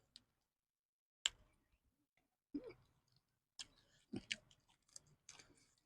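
Near silence broken by a few scattered sharp clicks and soft mouth sounds of people eating: chewing and utensil or plate clicks.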